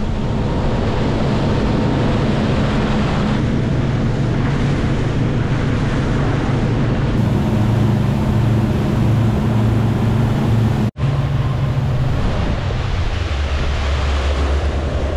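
A boat's engine running at speed, with rushing water from the wake and wind on the microphone. The engine note drops lower near the end as the boat eases off.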